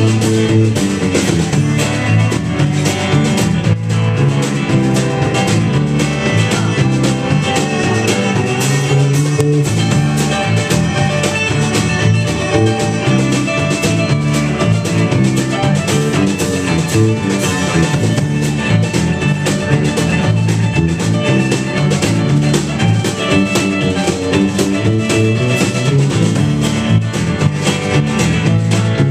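Small folk-rock band playing live: a strummed acoustic guitar leads, with a second guitar and a cello in the mix.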